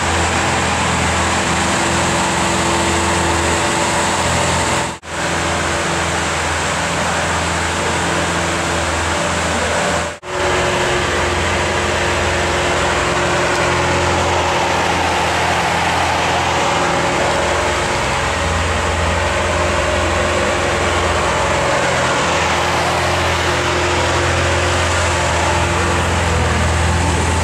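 Lamborghini Aventador LP700-4's V12 engine idling steadily, with no revving. The sound drops out briefly twice, about five and ten seconds in.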